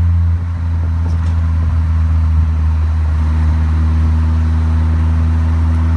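Turbocharged Volkswagen/Audi engine, mid-mounted in an open exoskeleton car, running steadily under way as a low, even drone over road noise. The drone dips briefly about half a second in.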